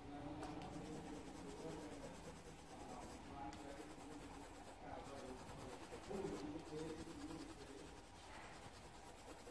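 Faint scratching and rubbing of hands and a coloured pencil on paper cards laid on a cloth-covered table, with faint muffled voices in the background.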